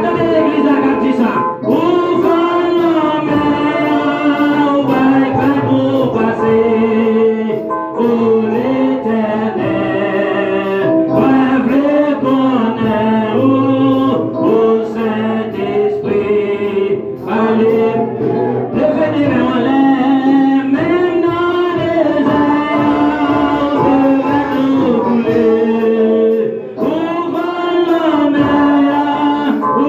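Gospel song with female and male voices singing together over instruments.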